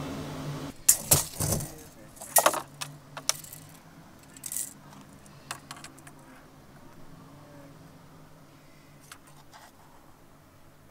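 Handling noises from a cardboard box of MaxTrax recovery boards and a steel tape measure: a quick run of sharp knocks and light metallic rattling in the first few seconds, then a short scrape and a few scattered clicks.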